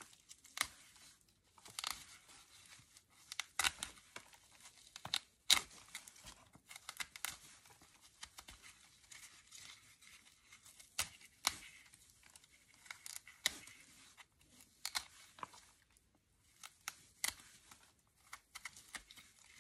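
Dry roots and papery outer scales of a double amaryllis bulb being scraped and peeled off with a blade: irregular dry crackling and tearing, with short pauses between strokes.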